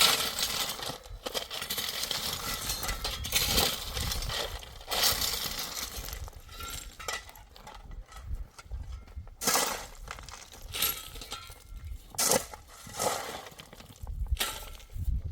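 Irregular clattering and clinking of hard objects being knocked or handled, in uneven bursts.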